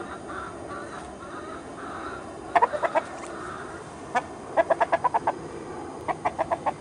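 Young Araucana rooster clucking in quick runs of short clucks: about four in a row a little over two and a half seconds in, a run of about seven near the middle, and about five more near the end, over steady background noise.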